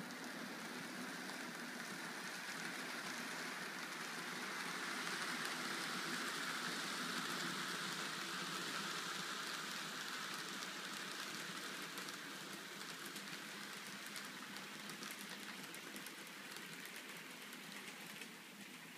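Model freight train running on its track: a fine, steady rattle of wheels on rail. It is loudest about midway and then fades, with light clicks later on.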